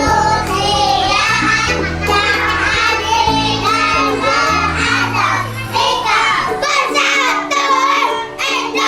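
Song with a high singing voice over a musical accompaniment that has a bass line; the bass drops out about two-thirds of the way through, leaving the voice over lighter, higher backing.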